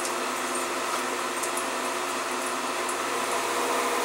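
Steady whirring hum of a small fan motor, with a few steady low tones and an even hiss, unchanged throughout.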